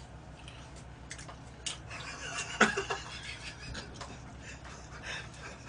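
Mealtime noises from men eating from plastic takeout containers: scattered clicks of chopsticks and containers, with breathy snickering laughter. One sharp, louder burst comes about two and a half seconds in.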